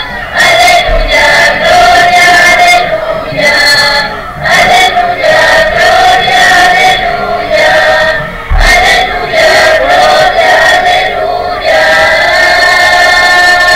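A congregation of men and women singing a hymn together, in held phrases with short breaths between them.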